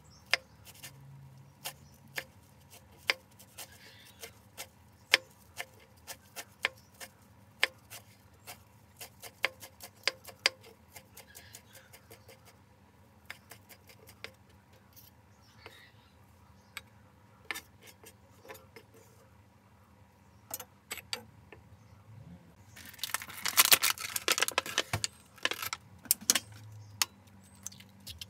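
Kitchen knife chopping leafy herbs on a wooden cutting board: irregular sharp taps, dense in the first ten seconds or so and sparser after. About 23 seconds in there is a louder clattering burst lasting a couple of seconds.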